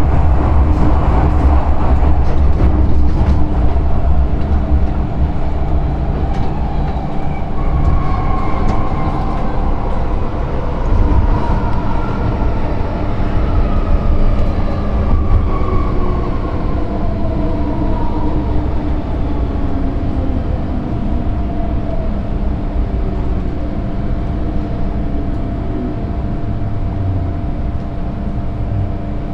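MTR M-train electric multiple unit under way: a steady rumble of wheels on track with the traction motors whining. From about eight seconds in, the whine falls slowly in pitch as the train slows down.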